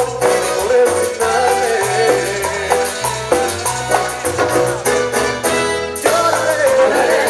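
Live dance orchestra playing a Latin, salsa-style passage with bass, congas and saxophone, the arrangement changing about six seconds in.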